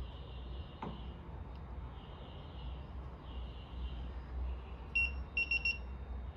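Electronic beeps from a Ricoma MT-1501 embroidery machine as it powers up: one short beep about five seconds in, then four quick beeps, over a low steady hum.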